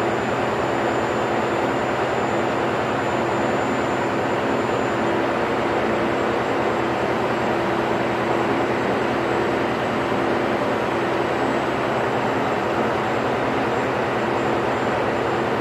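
Ship's engine-room machinery running steadily: a loud, unbroken drone with a fine rapid throb low down and a steady hum.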